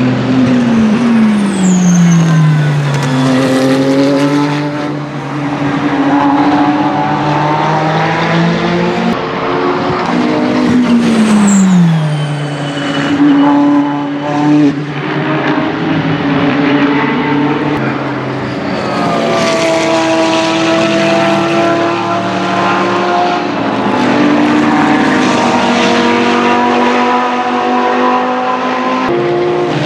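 Ferrari 488 GT3 EVO racing cars' twin-turbo V8 engines on track, with engine notes rising and falling through the gears. The pitch falls steeply twice, just after the start and about 11 seconds in.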